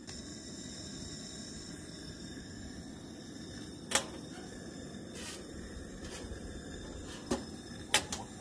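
A few sharp metallic clicks from the door knob of a Coleman camp oven being turned, the loudest about four seconds in, over a steady low rushing background.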